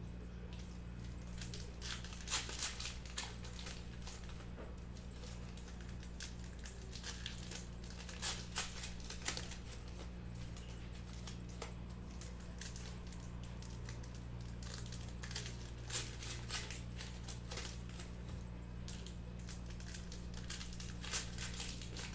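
Trading-card pack wrappers being torn open and crinkled in short crackling bursts every few seconds, over a steady low hum.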